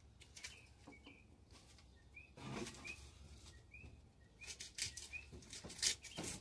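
A small bird chirping in the background, short rising chirps about twice a second, with several brief bursts of rustling, the loudest near the end.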